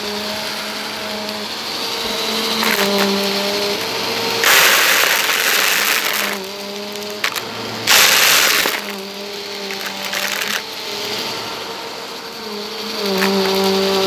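Bissell upright vacuum cleaner running on carpet, its motor hum shifting in pitch as it is pushed back and forth. Plastic beads click and rattle as the brushroll picks them up, with two louder rushes of noise about four and a half and eight seconds in.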